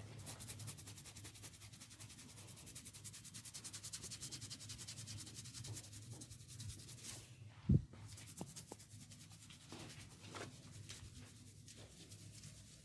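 Hands rubbing briskly over an oiled scalp and hair in a head massage, a dense, rapid run of rubbing strokes, with one dull thump a little past halfway.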